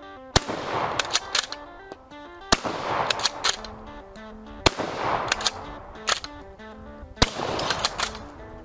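A bolt-action shotgun fired four times, roughly every two to two and a half seconds, with the clack of the bolt being worked to eject the shell after each shot. Background music plays under the shots.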